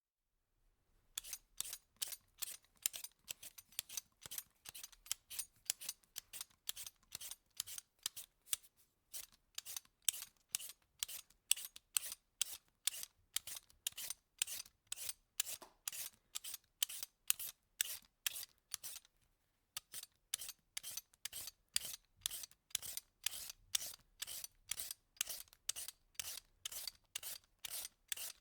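Vegetable peeler scraping strips of peel off food in quick repeated strokes, about two or three a second, with a couple of brief pauses.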